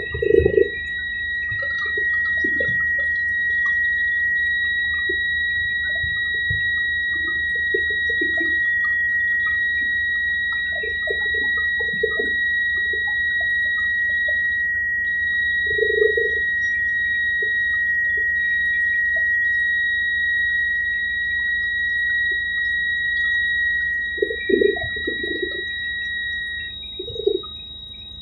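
Helicopter turbine whine: a steady high-pitched tone over a low rumble, which cuts out a little before the end. Scattered short mid-pitched sounds come and go, loudest near the start and again about three-quarters of the way in.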